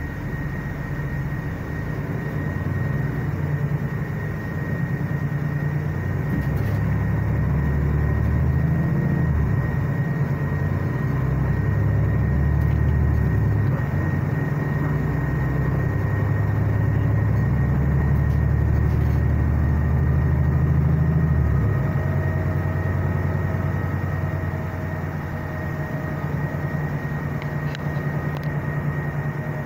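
Mercedes-Benz Citaro C2 articulated bus engine and drivetrain heard from inside the passenger cabin while the bus drives. The low engine note builds and holds strongly, then drops off suddenly about three-quarters of the way in. A steady high-pitched tone runs underneath throughout.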